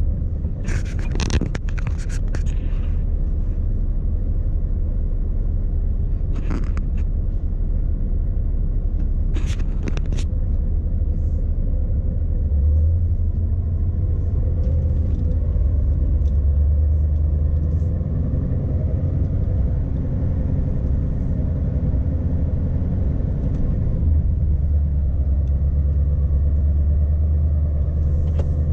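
Scania S520's V8 diesel engine running under way, heard from inside the cab as a steady low drone that swells about thirteen seconds in and again near twenty-four seconds. A few short clicks or knocks come over it early on and around ten seconds in.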